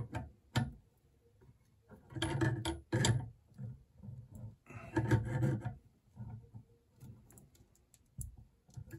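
Pliers gripping and turning the bidet T-valve on the toilet tank's inlet, tightening it in several short bouts of rasping and clicking of the jaws against the fitting.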